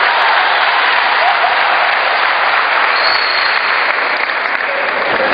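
Boxing crowd applauding steadily, with voices mixed in.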